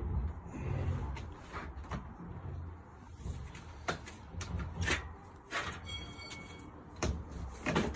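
Plastic shed roof panels being shifted and handled on top of the shed walls: a string of irregular knocks and scrapes, with a brief high squeak about six seconds in.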